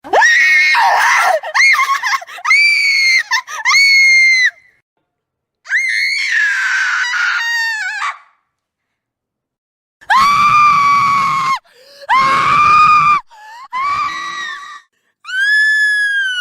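Several young women's horror screams, one after another in separate groups with silent gaps between them: long, high-pitched shrieks, some broken into short repeated screams.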